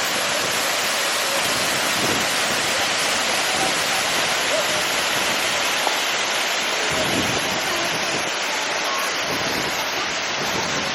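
Waterfall rushing in a steady, loud, even roar of falling water.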